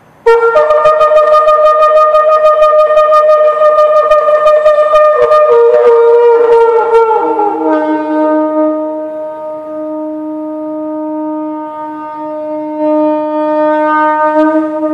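A long Yemenite shofar blown in one long blast that starts suddenly. A higher note with a fast pulsing flutter drops in two steps, about five and seven seconds in, to a lower, softer held note that swells briefly near the end.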